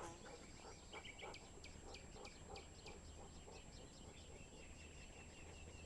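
Faint small-bird chirps: many short, quick chirps with a thin held note now and then, over a quiet background.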